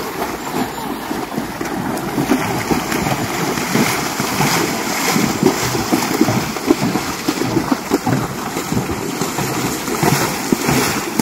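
Two horses wading through a shallow river, their legs splashing and churning the water in a continuous run of irregular splashes.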